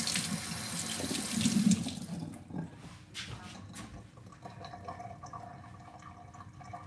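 Kitchen tap running into the sink, shut off a little over two seconds in; a few light knocks follow.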